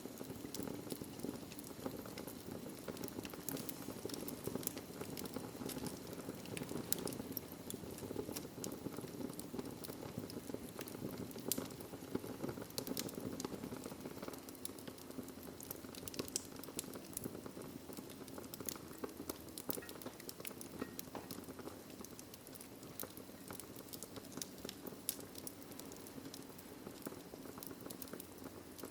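Wood fire crackling in a fireplace: frequent sharp snaps and pops over a steady low rush of the flames.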